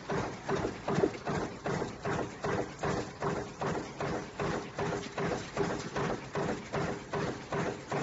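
Mechanical punch press stamping metal parts, clattering in a steady rhythm of about two and a half strokes a second with a faint metallic ring under the strokes.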